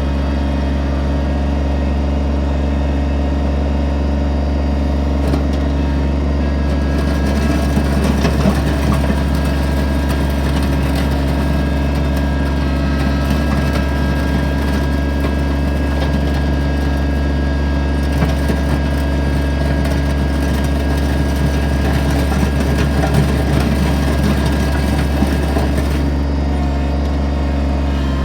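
Kubota BX25D compact tractor's three-cylinder diesel running steadily while its backhoe blade is worked. Through the middle the sound turns rougher and a little louder, then settles again near the end.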